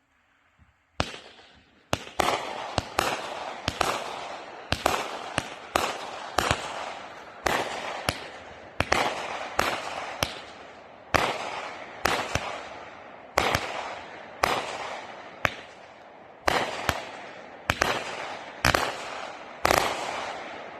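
A 200-gram ShowTime 'Color Me America' consumer fireworks cake firing its shots in quick succession. Sharp bangs come about two a second, each trailed by a fading hiss, starting about a second in and stopping just before the end.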